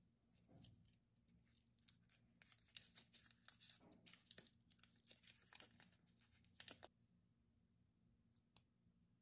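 Crinkling and tearing of a Hi-Chew candy wrapper as it is opened: a dense run of crisp rustles that stops about seven seconds in.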